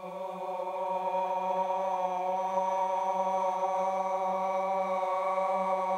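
A man's voice holding one steady note through the Quilcom Vocoral chorus plugin, which stacks it into 20 voices so it sounds like a choir chanting. It swells over the first second, then holds level.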